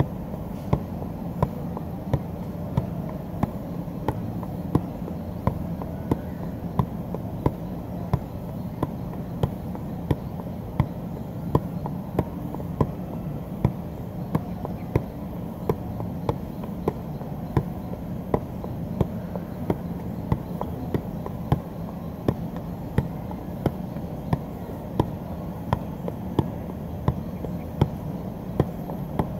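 Soccer ball being juggled with the feet: a steady rhythm of thuds, about one and a half touches a second, over a constant low background rumble.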